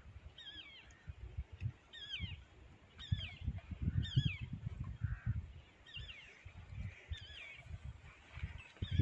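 A bird calling over and over, short wavering high notes about once a second, over an uneven low rumble.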